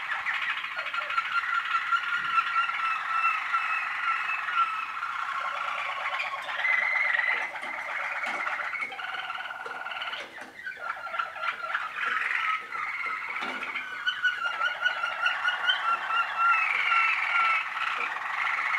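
Young Waterslager canaries singing: a continuous stream of rapid trills and rolling, gurgling passages, with a short break about ten seconds in.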